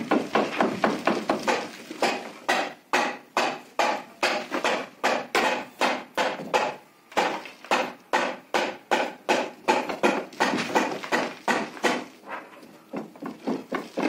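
Iron bar knocking repeatedly against the wooden planks and packed mud of an old mud roof, about two to three strikes a second, with brief pauses about seven seconds in and near the end.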